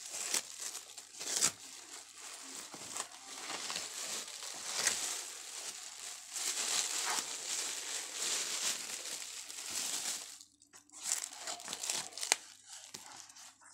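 Clear plastic wrapping crinkling and crackling as it is pulled off a parcel and bunched up by hand, with a short pause about ten seconds in.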